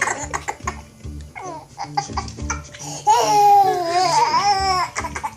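A young child babbling, then letting out a long, wavering, high-pitched squeal of laughter about three seconds in, with cartoon music from the TV playing underneath.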